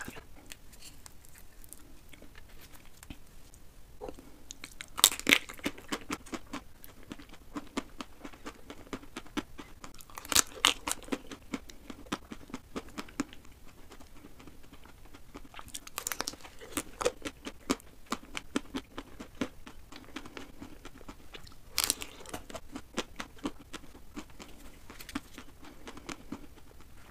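Close-miked eating of chocolate-coated ice cream: four crisp bites, several seconds apart, that crack the chocolate shell, each followed by a run of crunching and wet chewing.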